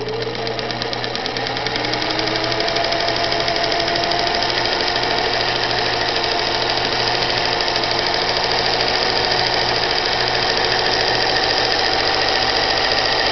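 1951 Singer 221 Featherweight sewing machine running under its foot pedal, its belt-driven motor whirring with a fast, even clatter from the needle mechanism. It speeds up over the first two seconds and then runs fast and steady. No needle is fitted, and fabric is being pulled through.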